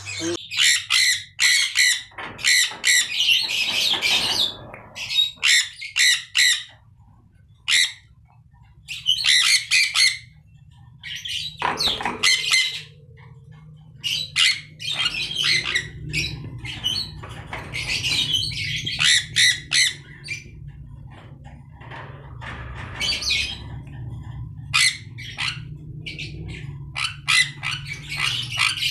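Budgerigars squawking and chattering in repeated harsh bursts of a second or two, with short pauses between. A low steady hum runs under the calls from about halfway through.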